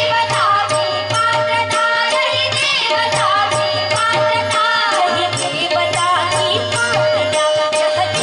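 Devotional bhajan: women's voices singing over a harmonium's held note, with a hand drum and small cymbals keeping a fast, even beat.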